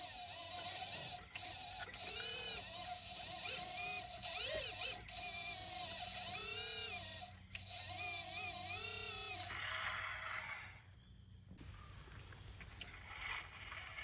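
Small electric motors of radio-controlled scale model vehicles whining. Their pitch rises and falls again and again as they speed up and slow down, over a steady high-pitched whine. The sound drops away to quiet about eleven seconds in, then picks up again.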